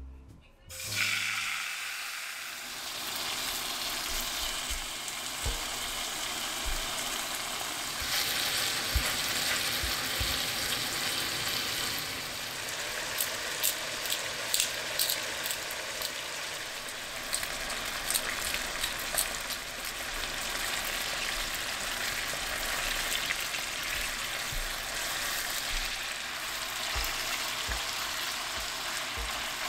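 Chicken pieces sizzling in oil in a frying pan as they sear and brown. A steady hiss starts about a second in, with scattered pops and crackles throughout.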